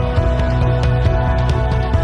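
Instrumental background music with sustained chords and a steady beat.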